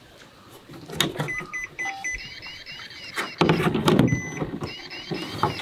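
Carp bait boat being switched on: about a second in, four short electronic beeps, then a repeating rising-and-falling electronic warble. Knocks and rustles of handling, loudest midway.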